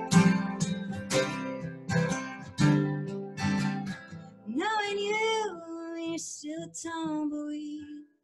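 Acoustic guitar strummed at about two strums a second. About halfway through, a woman's singing voice comes in with long held notes over the ringing guitar.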